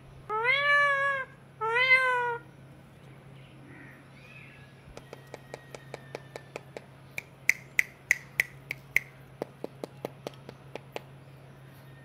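Two drawn-out meow-like calls, each rising and then falling in pitch, close together early on. About five seconds in, a run of sharp clicks starts, two or three a second, and stops about eleven seconds in.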